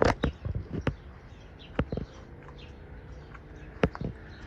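A handful of sharp knocks and clunks from a garden hose and its fittings being handled and hooked up, with birds chirping faintly in the background.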